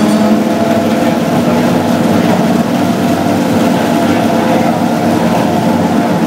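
1967 Ferrari 312 Formula One car's 3-litre V12 idling steadily as it warms up after start-up.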